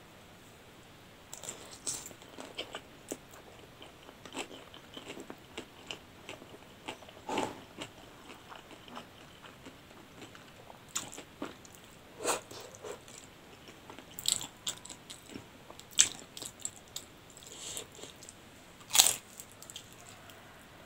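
Close-miked eating: chewing with irregular crisp crunches from biting fried wonton skins, between mouthfuls of noodles. The crunches come every second or so, with louder ones about a third of the way in and near the end.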